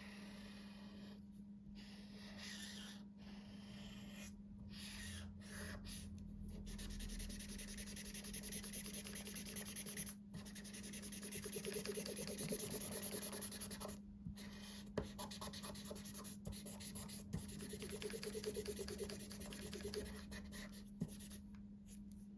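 POSCA paint marker tips scratching across the drawing surface in continuous strokes, broken by short pauses, with a few light taps later on.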